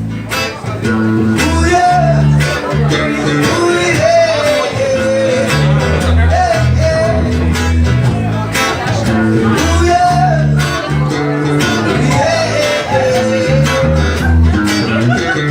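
Music: an instrumental stretch of a guitar-driven song, with a steady bass line and a melody line over it.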